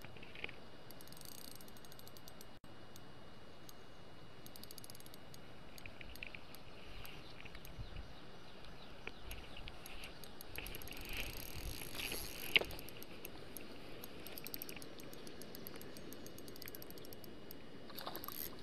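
Small spinning reel ticking faintly in spells as it is wound in against a hooked pike on an ultralight rod, over a steady hiss. One sharp click comes about twelve and a half seconds in.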